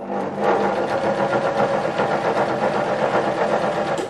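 Electric sewing machine running steadily, its motor humming and needle stitching through a rice-filled fabric pad, stopping near the end.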